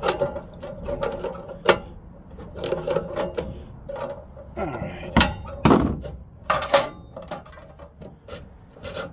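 Metal clinks and knocks of an adjustable wrench tightening the arbor nut that clamps a new abrasive cutoff wheel on an old Makita chop saw. The taps come irregularly, with a few louder knocks about five to seven seconds in.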